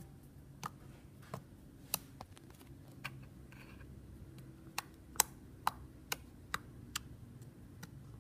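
A series of sharp, irregular clicks, about a dozen in eight seconds, over a faint steady hum.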